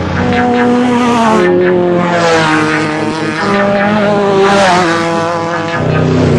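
Off-road race vehicle's engine running hard, its pitch holding and then stepping up and down every second or so as it works through the gears.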